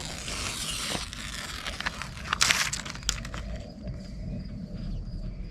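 Backing paper crinkling and tearing as it is peeled off SIGA Fentrim self-adhesive sealing tape, with a louder rip about two and a half seconds in.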